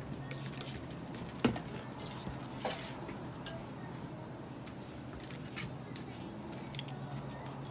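A steady low hum that drops away about a second in and comes back near the end, with a few light clinks and knocks, the sharpest about one and a half seconds in.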